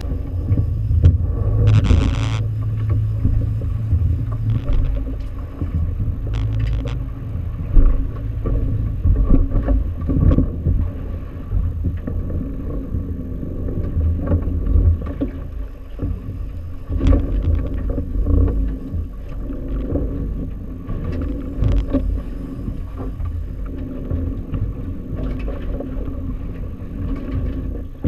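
Fishing boat under way: a steady motor hum beneath a heavy, uneven low rumble.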